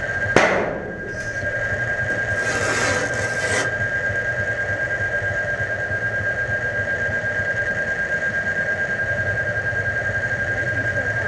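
A sharp bang about half a second in, then a hiss lasting about a second, over a steady high-pitched tone and a low hum that pulses rapidly.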